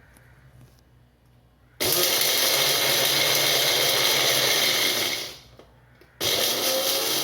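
Electric mixer grinder (mixie) grinding whole dry spices (coriander seeds, cumin and black pepper) in two pulses. It starts abruptly about two seconds in, runs for about three seconds and winds down, then starts again about a second later.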